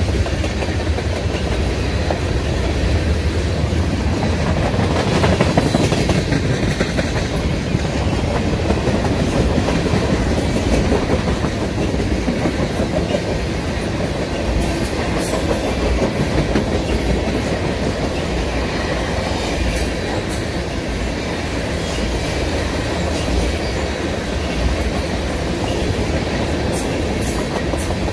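Tank cars of a Canadian National freight train rolling past, with a steady rumble of steel wheels on rail and clicking over the rail joints.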